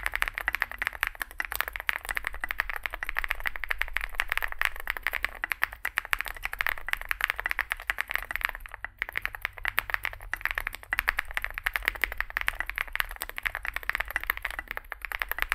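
A steady, dense crackle of rapid clicks, like fast typing or a rattle, that thins out briefly a little past halfway.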